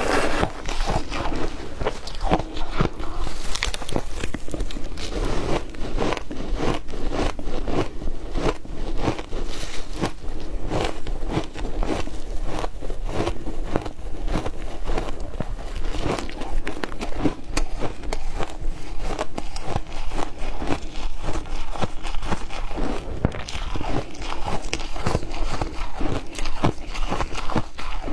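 Ice being bitten and crunched between the teeth, close to the microphone: many sharp cracks and crunches in quick, continuous succession.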